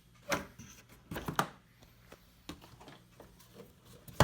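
A few scattered clicks and light knocks, like handling noise, with a small cluster about a second in and a sharper knock near the end.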